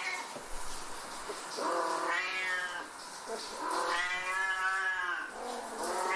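Siamese cats yowling: a long, wavering yowl about a second and a half in, a longer one about four seconds in, and another starting near the end.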